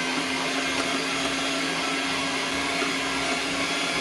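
Electric hand mixer running steadily with an even motor whine, its beaters whipping egg and sugar toward the ribbon stage.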